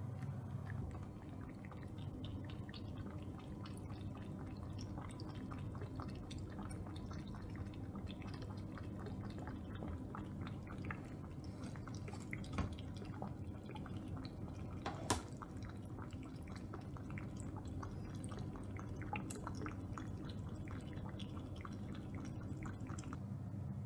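Cat eating: a dense run of small, quick wet mouth clicks and chewing sounds, with two sharper clicks near the middle, over a steady low room hum.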